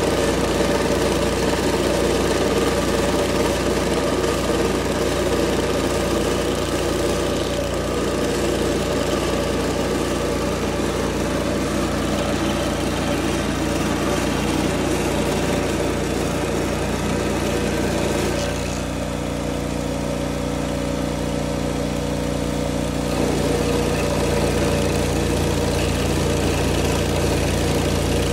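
Old Vermeer stump grinder's engine running steadily. About two-thirds of the way through, the rougher mid-range part of the sound thins and the level drops a little for a few seconds, then picks up again.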